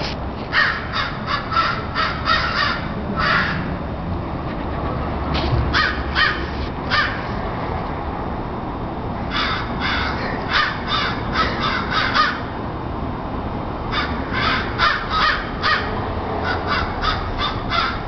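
Several crows cawing from a tree in four bouts of quick, harsh, repeated caws, with pauses of a second or two between bouts.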